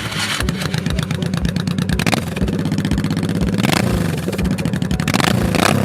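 1989 Honda Shadow V-twin motorcycle engine running through aftermarket Vance & Hines exhausts, with a steady pulsing beat. It swells briefly three times as the throttle is blipped.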